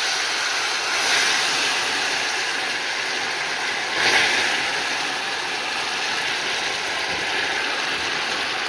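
Hot water poured into freshly melted caramelized sugar in an aluminium pudding mold, the caramel sizzling and boiling hard as a steady hiss, briefly louder about four seconds in as more water goes in.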